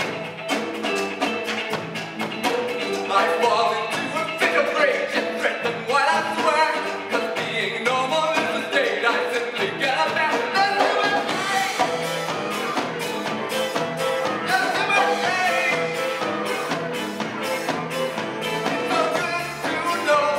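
Live folk music from an instrumental ensemble, several melodic lines over a steady percussion beat that comes to the fore in the second half.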